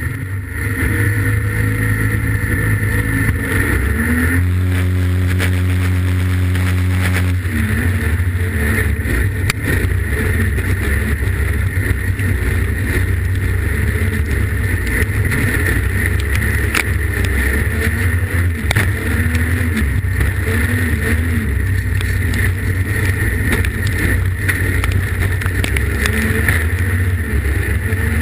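Streetstock race car engine heard from inside the cockpit, with a steady high whine above it. The engine holds steady revs for a few seconds, then from about seven seconds in runs hard and rough with constantly wavering revs as the car races on the dirt track.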